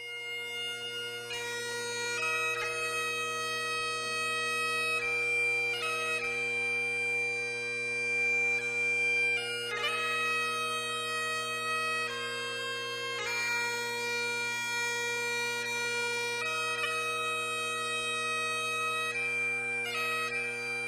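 Bagpipes playing a slow tune in long held notes over steady, unbroken drones.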